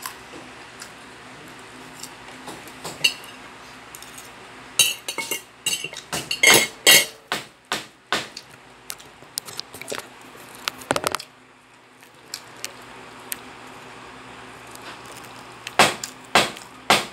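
Cutlery and dishes clinking during a meal: a spoon and fork tapping and scraping on a ceramic plate in scattered clinks, with a busy run of them from about five to eight seconds in. A steady low background hum stops about eleven seconds in.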